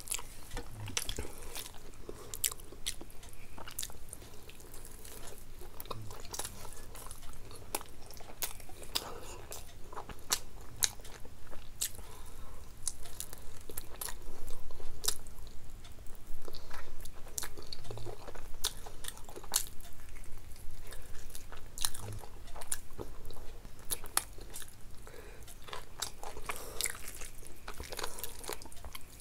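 A person chewing and crunching food, with many sharp crunches and mouth clicks throughout, a little louder around the middle.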